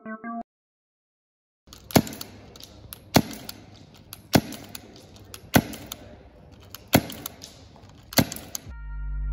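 Tokyo Marui SOCOM MK23 non-blowback gas airsoft pistol fired with its suppressor fitted: six sharp shots, a little over a second apart. Music with keyboard tones comes in near the end.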